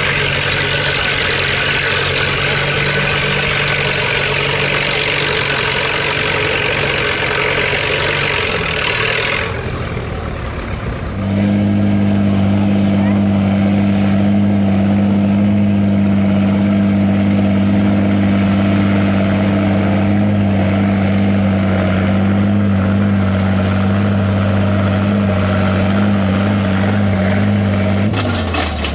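Antique farm tractor engine running. Its sound dips about ten seconds in, then a tractor engine runs loudly at one steady pitch for most of the rest, and the pitch falls as it is throttled down near the end.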